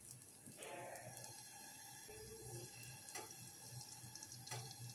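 Faint sizzle of egg-soaked bread slices frying in desi ghee on low heat, with a couple of faint clicks.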